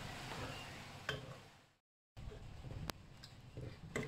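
A ladle stirring thin barley porridge in a metal pot: soft liquid swishing with a few light clicks of the ladle against the pot. The sound cuts out completely for a moment just before halfway.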